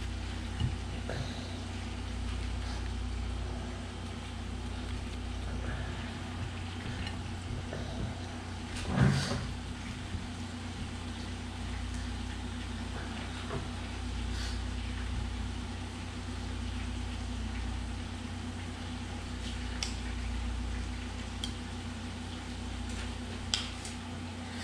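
Soft handling noises and light clicks as filled flour tortillas are rolled up by hand on plates, over a steady low hum. A short, louder knock comes about nine seconds in.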